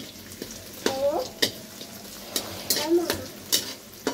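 Sliced onions sizzling in hot oil in a metal kadai, stirred with a slotted metal spatula that scrapes and clinks against the pan several times. The onions are being fried to light golden.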